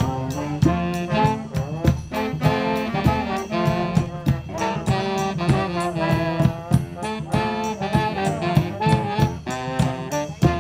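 Live brass band playing a jazzy tune: saxophone, trombone and trumpet carry the melody over a steady drum beat.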